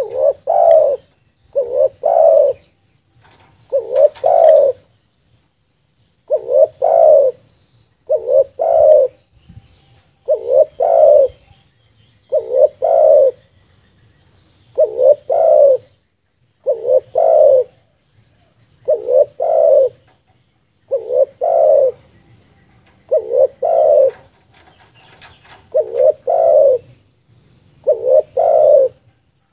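Spotted dove (tekukur) cooing, a low phrase of two or three notes repeated about every two seconds, played as a lure call to draw wild doves.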